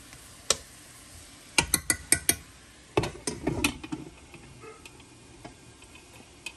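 Sharp clicks and clinks of a utensil knocking against a skillet of frying chicken, then a glass pan lid clinking as it is set on the pan, over a faint sizzle.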